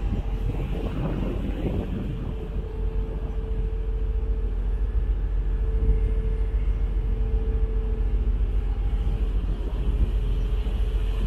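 Ferry's engines running: a steady low rumble with a constant mid-pitched hum, and a brief swell of rushing noise about a second in.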